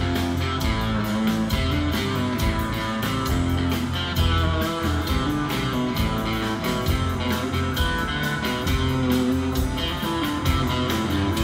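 Rock band playing live, an instrumental passage between sung verses: distorted electric guitars, bass guitar and drums keeping a steady beat.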